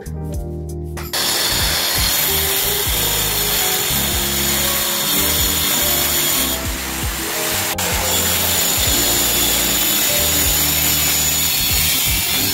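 A power tool starts running about a second in and keeps going steadily, a loud dense whirring noise, over background music with a low bass line.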